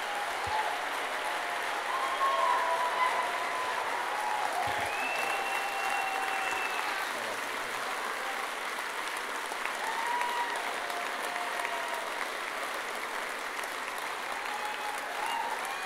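Concert audience applauding steadily, with scattered cheers and whistles held above the clapping.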